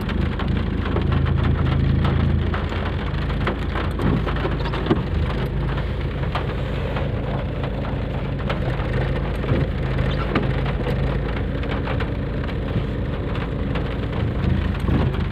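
Heavy rain drumming on a car's roof and windscreen, heard from inside the cabin as a dense patter of drop taps over a low steady hum.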